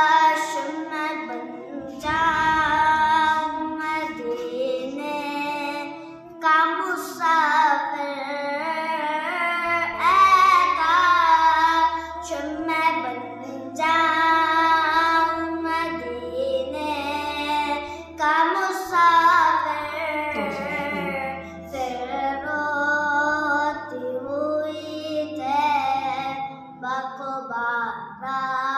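A young boy singing a naat, a devotional poem in praise of the Prophet, solo in a sweet voice. He sings phrases of a few seconds with gliding, ornamented held notes and short pauses for breath.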